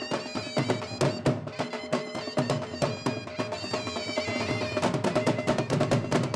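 Dhol drums beating a fast, dense folk dance rhythm, with a steady drone and a reedy melody line over them; the strokes grow busier about five seconds in.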